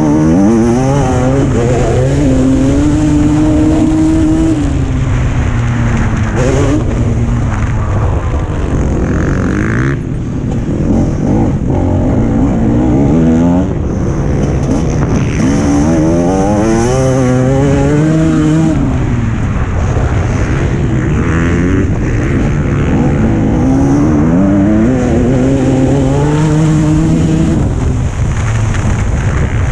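Motocross bike engine heard from on board, revving hard through the gears: its pitch climbs, steps and falls again several times as the rider accelerates, shifts and rolls off. A steady noisy rush runs underneath.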